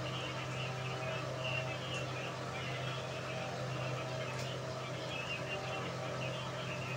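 A dog eating rice from a bowl, soft chewing and licking sounds coming and going, over a steady low electrical hum.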